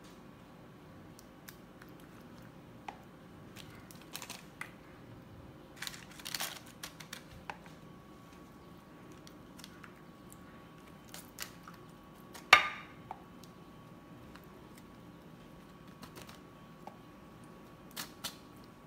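Scattered clicks, taps and soft scrapes of a serving spoon scooping tomato sauce from a plastic tub and spreading it over pasta in baking dishes, with one sharp knock about twelve seconds in.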